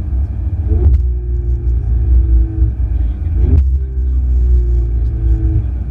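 Ferrari 488 GTB's twin-turbo V8 running under way with a heavy low rumble. Its pitch breaks twice with a sharp click, about a second in and again about two and a half seconds later, like quick gear changes, and settles after each.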